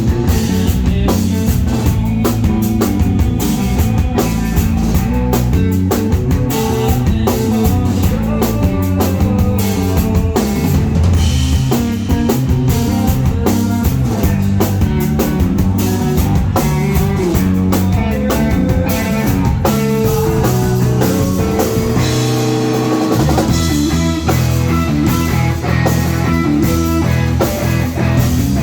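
Rock band playing live: a drum kit keeps a steady, busy beat of snare and bass drum under sustained bass and instruments, loud throughout. About three-quarters of the way through, the lowest notes drop out for a moment before coming back in.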